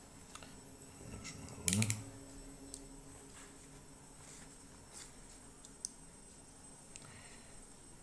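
Snap-off utility knife with its blade slid out in a quick run of ratcheting clicks just under two seconds in, followed by faint scattered clicks, scrapes and taps as the knife works on the cardboard box.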